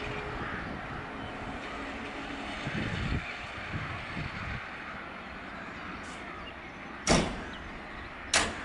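Class 232 'Ludmilla' diesel locomotive running as it rolls slowly away, its engine sound gradually easing. Two sharp knocks, a little over a second apart, near the end.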